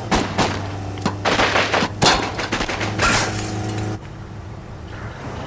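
Rapid gunfire, shot after shot in quick irregular volleys for about four seconds, over a steady low drone. The shooting cuts off abruptly about four seconds in, leaving a quieter steady rumble.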